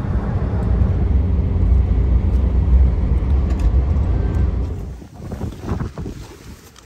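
A small car heard from inside its cabin at highway speed, its engine working hard near full throttle under a loud, steady low rumble of road and wind noise. About five seconds in the rumble stops, and a few soft knocks and rustles follow as someone climbs out of the car.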